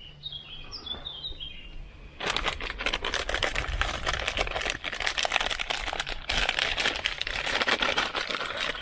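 A few bird chirps, then about two seconds in a sudden, dense crinkling crackle from the MRE's plastic flameless ration heater bag being handled.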